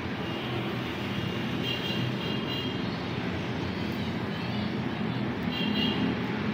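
Steady rushing background noise with a low hum underneath.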